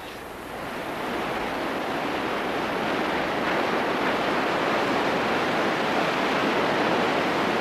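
A steady rushing noise that swells over the first second or so and then holds, with no distinct strokes or tones.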